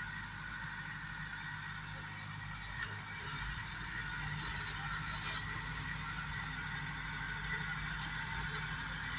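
Same orchard tractor's diesel engine running steadily under load as it tills manured soil with a rear implement, growing a little louder about three seconds in.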